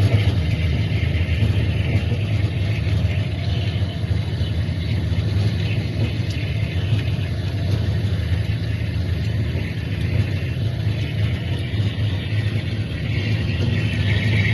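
Agie Charmilles EDM Drill 20 small-hole EDM drilling machine running: a steady low hum with an even hiss above it.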